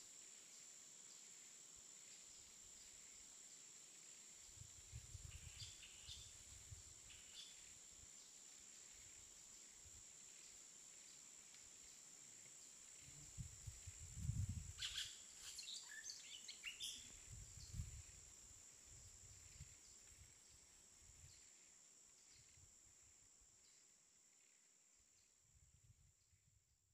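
Faint outdoor ambience: a steady high insect drone, with a few short bird chirps about five seconds in and again around fifteen seconds, and some low rumbles on the microphone in the middle. It all fades out near the end.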